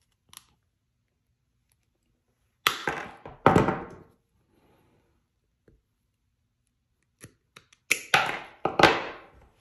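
Knipex side cutters crunching through 4-gauge stranded copper cable in two hard squeezes about three seconds in; near the end, after a few small clicks, Knipex step-cut cable shears crunch through the same cable in three quick bites.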